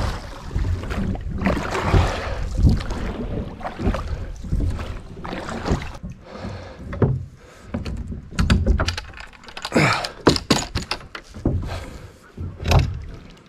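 Small plastic rowing boat being rowed with wooden oars: water swishing and splashing with the strokes, and the oars knocking in their metal oarlocks and against the hull. The knocks come thick and sharp in the second half, with a hard thunk near the end.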